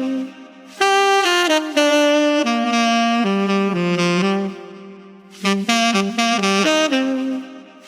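Solo saxophone playing two short phrases of separate, changing notes, with a brief pause between them.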